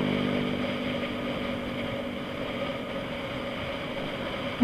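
Vehicle engine running steadily, its pitch holding level as the sound slowly fades, with one sharp knock at the very end.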